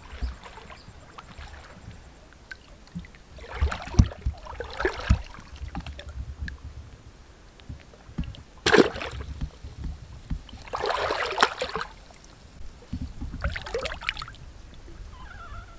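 Water splashing in several separate bursts as a wading man stabs a bamboo fishing spear into shallow muddy river water and grabs at the water, with one sharp splash about nine seconds in and a longer churning one soon after.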